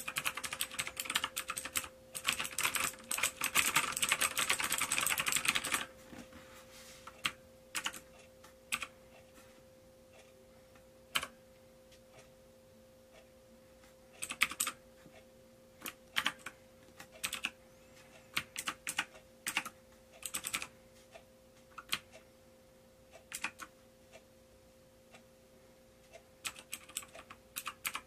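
Keys clacking on a XENICS M9 Spectrum mechanical keyboard: fast continuous typing for about the first six seconds, then scattered single keypresses and short runs of a few keys.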